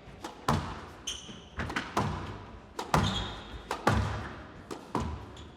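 A squash rally: the ball struck by rackets and smacking off the court walls in a quick irregular series of sharp hits, each with an echoing tail, and a couple of short high squeaks between them.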